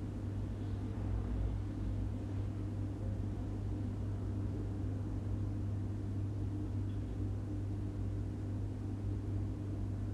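Room tone: a steady low hum with fainter higher hum tones over an even background hiss, unchanging throughout.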